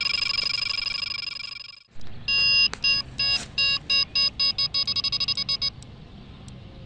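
A continuous warbling electronic tone fades out within the first two seconds. Then a Delkim TXI-D bite alarm beeps in ever quicker bursts, the sign of a carp taking line on a run.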